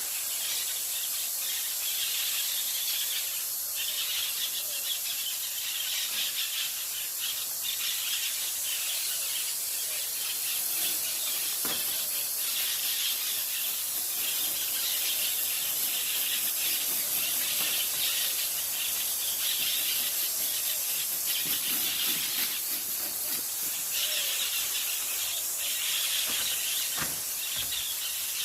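A flock of parakeets calling together: a dense, continuous chatter of many short, overlapping high calls, over a steady high hiss.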